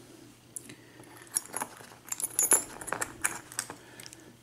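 Key and padlock being handled, with a string of light metallic clicks and clinks.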